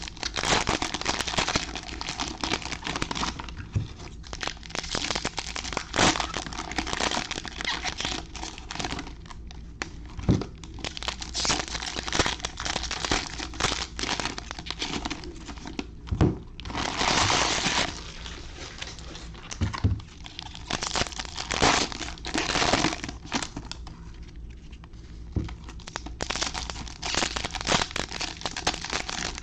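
2020 Panini Absolute Football fat-pack wrappers crinkling and tearing open in gloved hands, with the cards inside rustling as they are flipped through. It comes in irregular rustles and small clicks, with one louder rustle a little past halfway.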